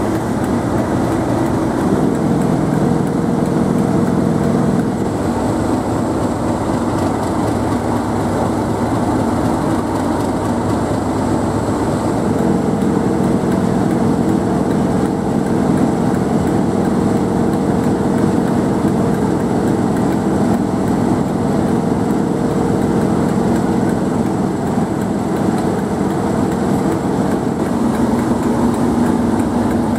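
English Electric V12 diesel engine of a Class 37 locomotive idling steadily and loudly; the engine note shifts a few times.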